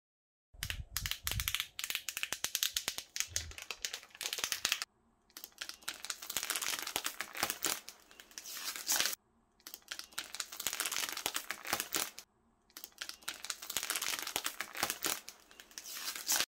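Thin protective plastic film crinkling and crackling as it is peeled off a PC case's glass panels, in four stretches broken by brief silences.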